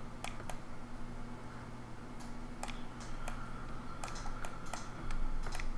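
Scattered, irregular clicks of a computer keyboard and mouse being worked, over a steady low hum.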